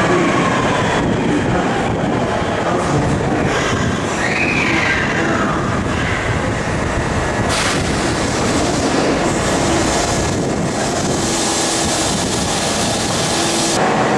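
Osaka Metro Chuo Line subway train running alongside the platform, with steady wheel and motor noise. A tone rises and then falls away about four seconds in, and a high hiss comes in near the middle and cuts off near the end.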